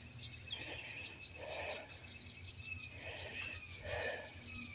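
Quiet outdoor ambience with faint birds and insects calling steadily, and a few soft, low, muffled sounds about a second and a half, three and four seconds in.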